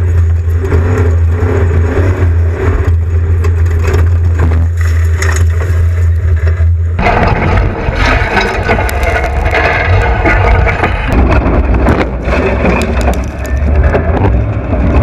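Off-road race vehicle running hard over rough ground: a steady low engine drone with knocks and rattles. About seven seconds in, the sound changes abruptly to a harsher, noisier mix of engine and clattering.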